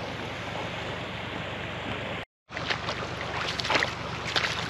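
Steady rush of a shallow, pebbly river. After a short break about halfway through, irregular splashing and sloshing follows as feet wade through the ankle-deep water.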